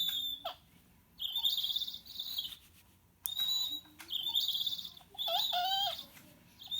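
Battery-powered sound module in a Hedwig owl puppet toy playing its one recorded owl call, triggered by pressing the wing. The same short screechy call sounds about five times in a row, with brief pauses between.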